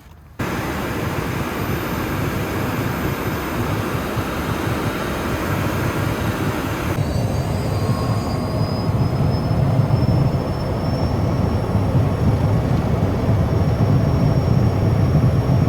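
Airplane engine noise: a loud, steady rumble that cuts in sharply right at the start and changes abruptly about seven seconds in, with a faint high whine over it in the second half.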